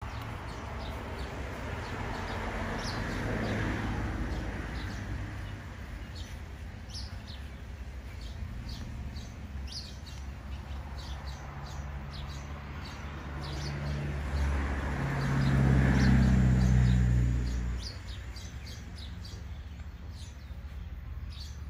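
Small birds chirping over and over in short high notes. A low engine hum swells up and fades away twice, faintly about three seconds in and louder in the second half: a vehicle passing.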